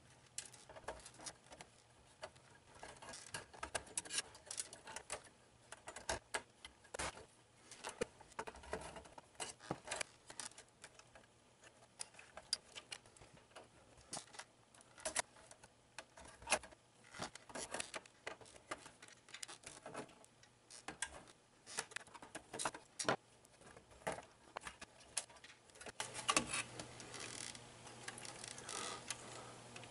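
Faint, irregular clicks and light clatter of hands working inside a Sun Ultra 5 workstation's metal case as cables are unclipped and the mainboard is lifted out. A low hum comes in near the end.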